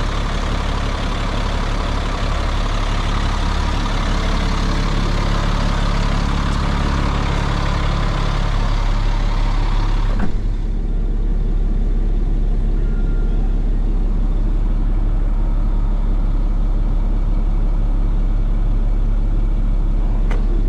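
GMC C7500 medium-duty truck engine idling steadily. About halfway through it is heard from inside the cab, duller, with less of the high end.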